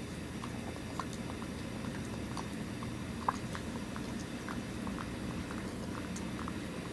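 A tabby-and-white cat eating wet food from a clear plastic bowl: irregular small wet clicks and smacks of lapping and chewing, with one sharper click about three seconds in, over a steady low background hum.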